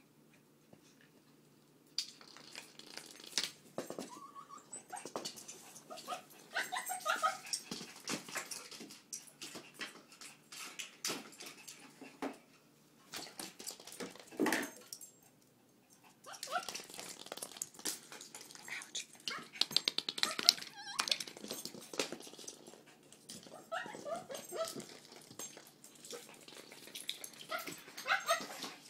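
Small fluffy dog in an excited fit, making short whines and yips amid scuffling, rustling and clicks, starting about two seconds in, with a lull midway.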